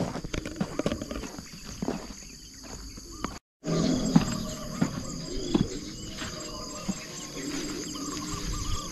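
Evening insect chorus: a steady high-pitched buzzing with a regular chirping pulse, joined by a few scattered knocks. The sound drops out completely for a moment a little over a third of the way in, then the chorus returns with some lower gliding calls.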